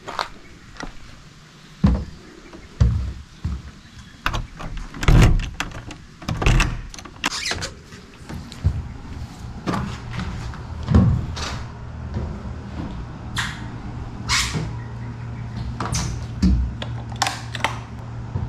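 Irregular knocks and clunks, a dozen or more, with a steady low hum setting in about eight seconds in.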